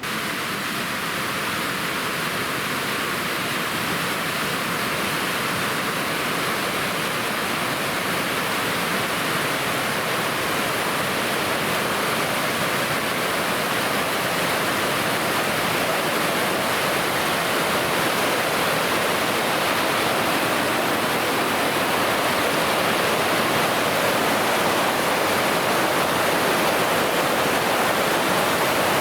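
Waterfall rushing: a steady, dense roar of falling water that grows slowly louder.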